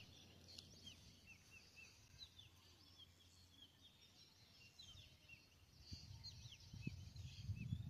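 Faint twittering of small birds: many short, quick downward chirps over near silence, with a low rumble building near the end.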